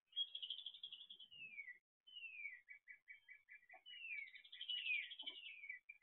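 Wild songbirds singing: clear slurred notes dropping in pitch, then a quick run of repeated notes at about four or five a second, with more slurs over them in the second half. Two faint low knocks come near the middle and later on.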